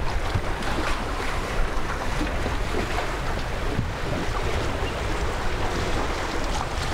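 Steady rush of wind and water along a sailboat's hull under sail with its engines off, with wind buffeting the microphone.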